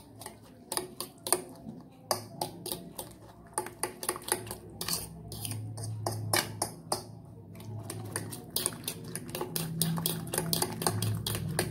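A utensil clinking and scraping against a ceramic bowl in quick, irregular taps, several a second, as raw eggs are beaten together with grated carrot, onion and herbs into a batter.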